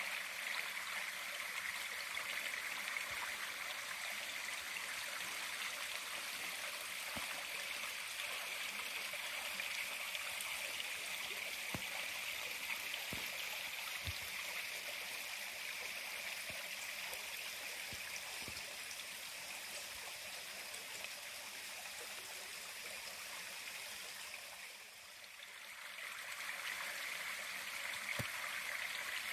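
Steady rush of running water, a continuous hiss-like flow that fades briefly near the end and then comes back.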